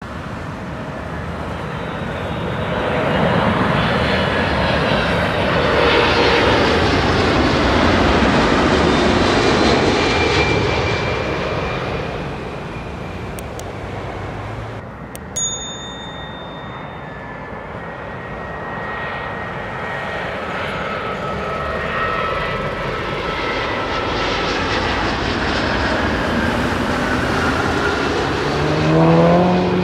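Boeing 747-400 freighter's four jet engines passing low overhead on landing approach, the noise swelling and then fading with a falling whine. About halfway through, a twin-engine Airbus A350 on approach takes over, its jet noise building toward the end with its pitch beginning to fall as it passes.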